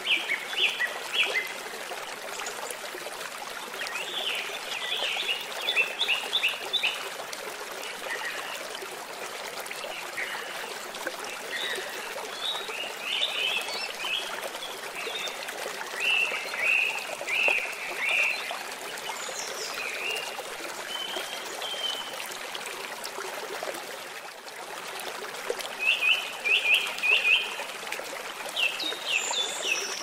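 Fast-flowing river water rushing over rocks in a steady wash, with small birds chirping in short clusters every few seconds.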